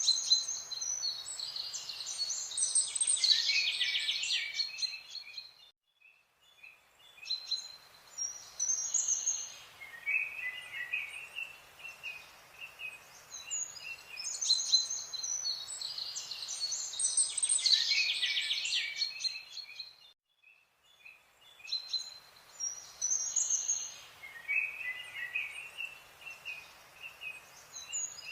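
Birds chirping and singing: a busy mix of short, high notes and trills. There are brief silent breaks about 6 and 20 seconds in, and the same stretch seems to repeat about every 14 seconds, like a looped nature soundtrack.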